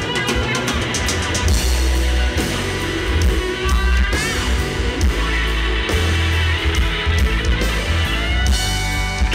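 Live rock band playing: electric guitar lines over drums and bass, with guitar notes bending upward about four seconds in and again near the end.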